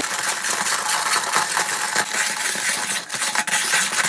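Hand-cranked ice shaver shaving ice cubes: a loud, steady crunching grind with rapid clicks as the blade scrapes the ice, starting abruptly.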